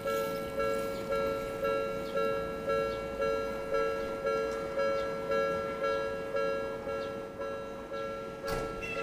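Japanese level crossing's electronic warning bell ringing, a two-tone ding repeating about twice a second, the signal that a tram is approaching the crossing. A single sharp knock sounds near the end.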